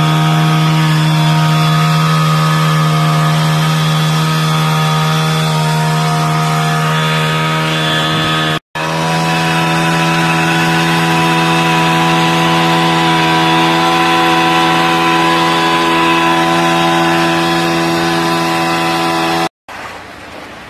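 Small petrol engine of a power screed running at a steady high speed, one constant drone that does not change pitch, cut off for an instant twice where clips are joined.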